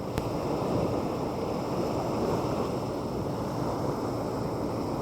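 Steady wash of sea surf with wind buffeting the microphone, and a single brief click just after the start.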